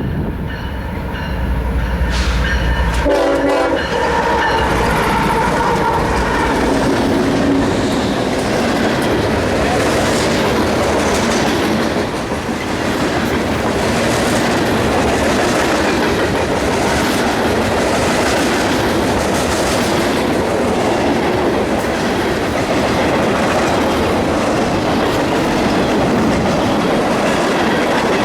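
Union Pacific freight train passing close by: a diesel locomotive rumbles past with a short horn sound a few seconds in, then freight cars roll by with steady wheel-on-rail noise and a regular clack about once a second.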